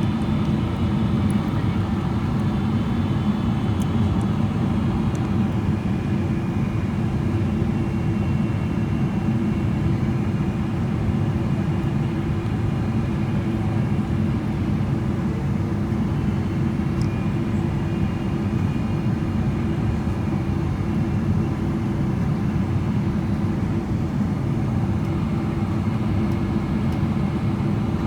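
Steady cabin drone of a Boeing 777-300ER descending on approach, heard from inside near the front of the cabin: GE90 engines and airflow over the airframe, a low rumble with a few steady tones in it.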